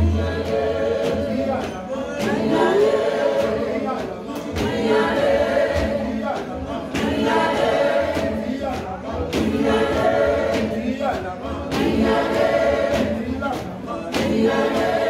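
Church congregation singing together in chorus, with rhythmic hand clapping.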